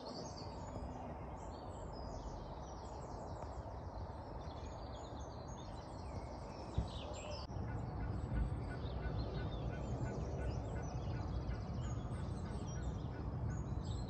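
Birds calling and singing over a steady low background noise, which grows a little louder about halfway through.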